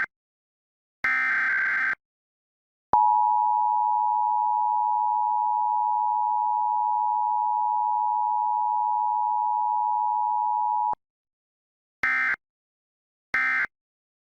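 Emergency Alert System broadcast signals: one burst of the screeching digital SAME header data, then after a short pause the steady two-tone EAS attention signal held for about eight seconds. Near the end come two short end-of-message data bursts about a second apart.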